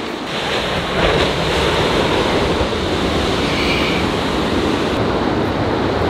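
Steady rush of ocean surf breaking on the shore, with wind on the microphone.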